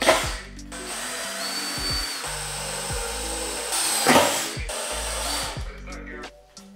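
Cordless drill driving screws into 2x4 lumber, the motor whirring for about five seconds with a brief higher whine, and a louder burst about four seconds in. Background music runs underneath.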